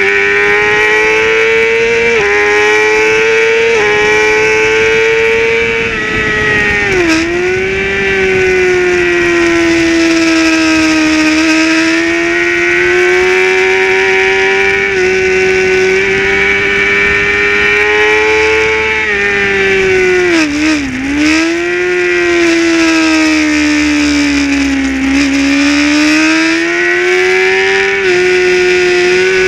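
Onboard sound of a race motorcycle engine at high revs, its pitch stepping at each gear change and dipping sharply with quick rev blips as it brakes and downshifts for corners about seven seconds in and again about twenty seconds in, under a rush of wind noise.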